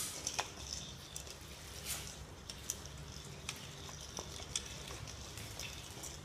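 Scattered light taps and scrabbling of a kitten's paws and a fur-tailed ball toy knocking across a hard tiled floor, a few irregular clicks a second over a steady low hiss.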